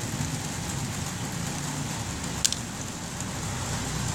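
Steady background noise like rain falling, with a single sharp click about two and a half seconds in.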